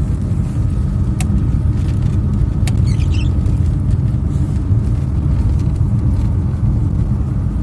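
Steady low rumble of a vehicle driving on the road, heard from inside the cabin, with two sharp clicks about one and two and a half seconds in.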